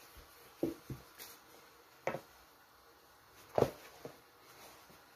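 About five short, soft knocks and bumps, the loudest about three and a half seconds in, as a thin sheet of rolled noodle dough is handled with a rolling pin on a wooden board.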